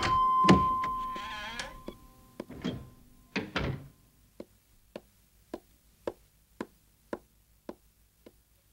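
Background music fades out over the first two seconds. A wooden door clunks shut with a couple of knocks about three and a half seconds in. Then come soft, evenly spaced ticks, about two a second.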